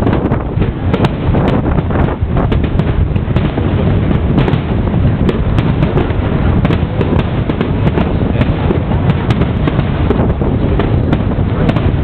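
Fireworks display: many irregular sharp cracks and pops from bursting shells over a constant low rumble, with wind buffeting the microphone.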